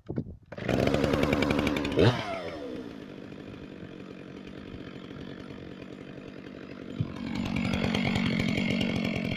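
Chainsaw starting up about half a second in and running at high revs, then dropping to a lower idle about two seconds in, and revving up again about seven seconds in.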